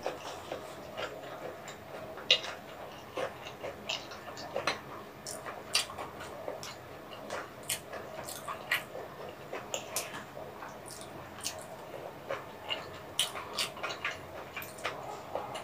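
Close-miked eating of tteokbokki and sundae: irregular wet mouth clicks and smacks of chewing, several a second, with a sharper click about two seconds in.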